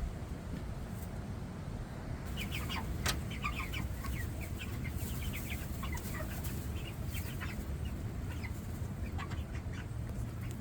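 Chickens clucking and calling: many short, scattered calls begin about two seconds in, over a low steady rumble.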